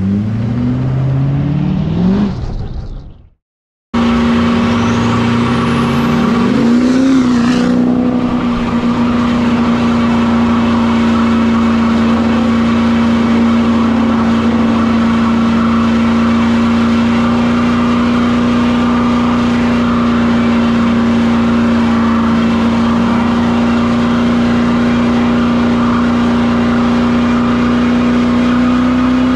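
Duramax V8 diesel truck engine revving up in rising sweeps, cutting out for about half a second a little over three seconds in, then revving up again and held at a steady high pitch through a long tyre-smoking burnout.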